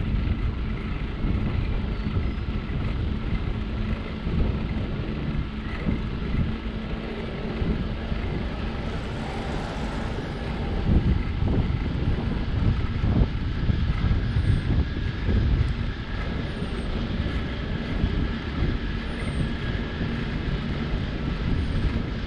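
Wind rumbling over a bike-mounted action camera's microphone, mixed with the hum of tyres rolling on asphalt; a steady low roar that swells in gusts.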